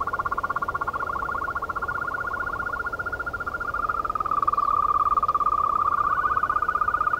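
Yosemite toads calling: long, fast-pulsed trills, each held at one steady pitch. Two trills at slightly different pitches overlap, the lower one taking over about halfway through and the higher one joining again near the end.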